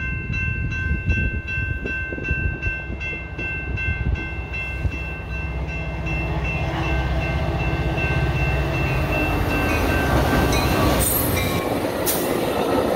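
Grade-crossing bell ringing at about three strokes a second with several steady tones, while an approaching Metra commuter train's rumble and low engine drone grow louder and take over. Two sharp knocks near the end as the train reaches the crossing.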